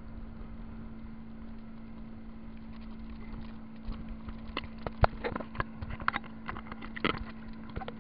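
Inflatable tube being towed and thrown about on the water: a steady low hum, then from about halfway a run of sharp, irregular knocks and slaps as the tube bounces and tips.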